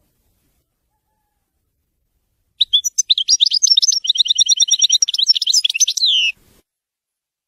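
European goldfinch singing one song phrase of the wedani style, starting about two and a half seconds in: about four seconds of rapid, high twittering trills, ending on a falling note.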